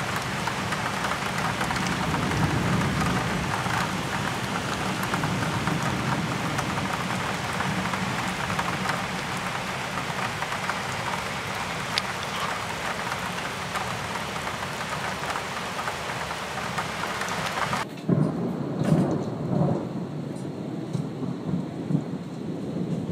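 Steady heavy rain falling during a thunderstorm. About eighteen seconds in, the sound changes abruptly and rolling thunder rumbles in several low swells.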